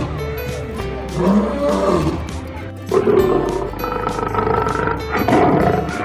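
Lion roaring several times, each roar a second or so long, over steady background music.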